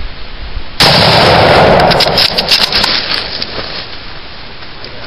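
A scoped hunting rifle fires once about a second in: a sudden, very loud shot whose noise lingers and fades slowly over about three seconds.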